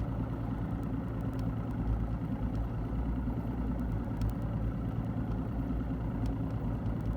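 Boat outboard motor running steadily at low speed, a constant low drone.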